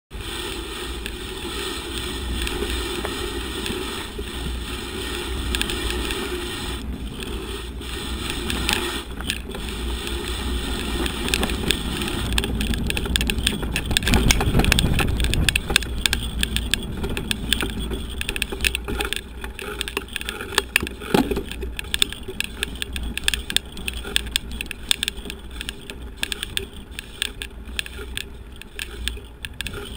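Steady low rumble of wind on the microphone with many short knocks and rattles from a camera jolting along a rough dirt and grass track. The rumble is loudest about halfway through, and the knocks come thicker in the second half.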